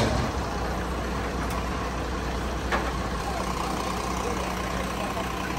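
Military cargo truck's diesel engine idling with a steady low rumble, and a single short knock about two and a half seconds in.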